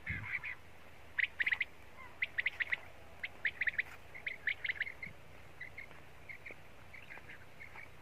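Common quail calling: quick clusters of three or four short, sharp notes, repeated over and over, growing fainter in the second half.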